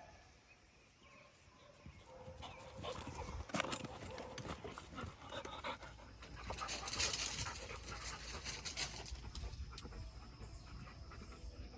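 A dog panting after running a retrieve, with scattered light clicks.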